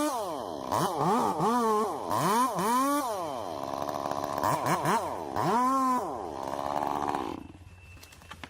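Chainsaw engine revving up and down several times in quick swells, then held high for a couple of seconds before it drops away about seven seconds in.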